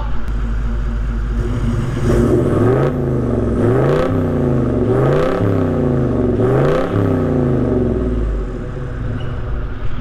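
Pre-DPF Toyota Land Cruiser 70-series single cab's 4.5-litre V8 turbo-diesel through a 3.5-inch stainless Torqit turbo-back single exhaust, heard at the tailpipe. It idles, is revved in four quick blips that rise and fall in pitch, then settles back to idle near the end.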